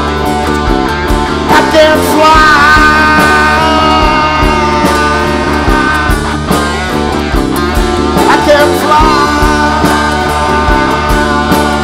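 Live rock band playing: strummed acoustic guitar, electric bass, electric guitar and a drum kit keeping a steady beat, with voices singing over the band without clear words.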